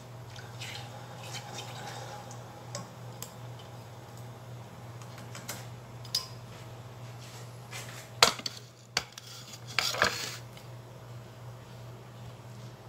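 Blended chili paste being emptied from a blender jug into a stainless steel cooking pot, with scattered clinks and scrapes of the jug and utensils against the pot. There are two loud knocks, about eight and ten seconds in, over a steady low hum.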